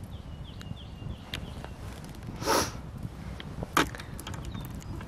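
Low outdoor rumble with scattered faint clicks, a short rustle about halfway through, and one sharp woody crack a little before the end.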